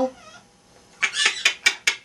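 Pet parrot making a quick run of about five sharp clicks and squeaks about a second in, after a brief warble.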